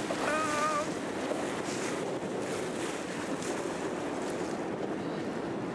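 Wind buffeting the microphone over steady wash of choppy water against a boat's hull, with a short pitched call about half a second in.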